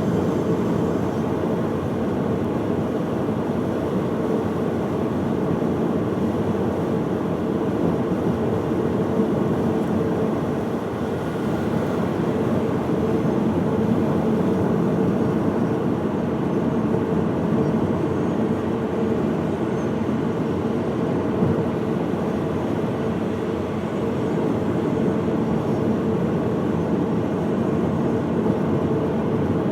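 Steady road and engine noise of a vehicle driving at an even speed, with a faint constant hum.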